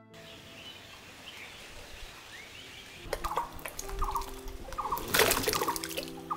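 A trayful of plums tipped into a stone trough of water, landing in one loud rushing splash about five seconds in, with scattered clicks of fruit around it. Birds chirp faintly before this, and short clucking calls from chickens come in from about three seconds.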